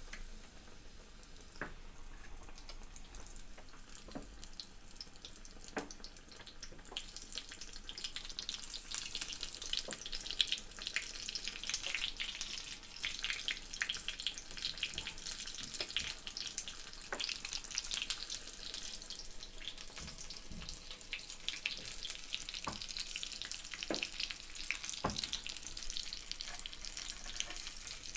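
Besan-battered potato slices deep-frying in hot oil: a steady sizzle and crackle with scattered sharp pops, getting louder about eight seconds in.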